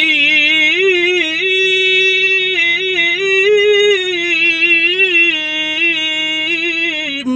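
A man reciting the Quran in a melodic style, holding one long ornamented note with small turns and wavers in pitch. It stops abruptly near the end.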